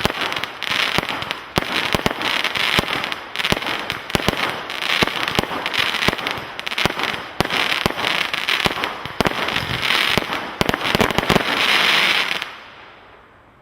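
A 100-shot firework barrage cake firing in rapid succession, with dense bangs over a pulsing hiss. It finishes about twelve and a half seconds in, and the sound fades away.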